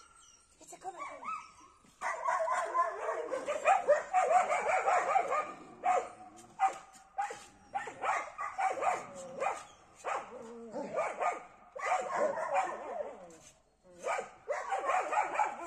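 A pack of small dogs barking, yipping and whining excitedly, several at once, starting about two seconds in and going on in overlapping bursts with short pauses.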